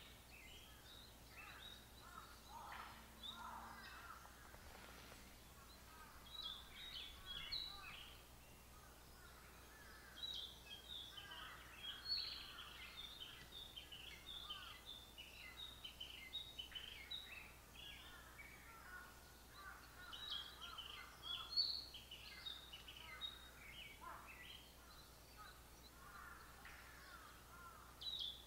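Songbirds chirping and calling in quick clusters of short, high notes that come and go, over a faint steady background hiss.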